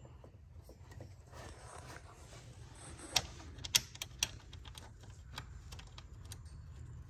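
Several sharp metallic clicks and taps as screws and a hand tool are handled against the fan shroud and its mounting, four of them bunched a little after the middle, a couple of fainter ones later, over a low steady hum.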